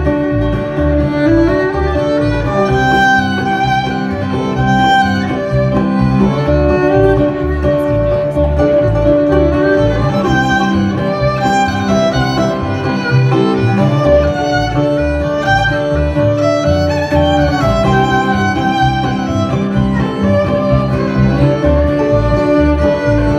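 Bluegrass band playing an instrumental passage: fiddle lead over guitar, with a steady pulse of low bass notes.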